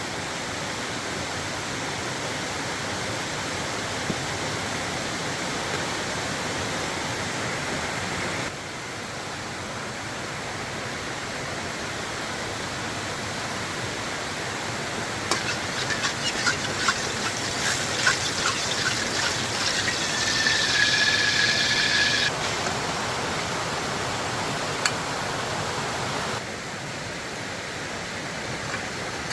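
Steady rush of water noise throughout. About halfway, a few seconds of crackling and spattering end in a brief high squeal, in keeping with eggs being fried in hot oil.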